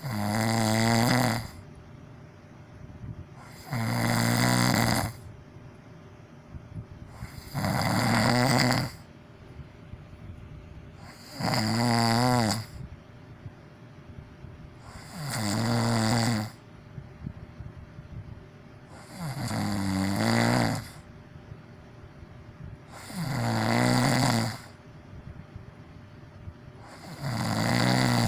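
A person snoring loudly and evenly: a pitched, rasping snore about every four seconds, eight in all, with quiet breath noise between them.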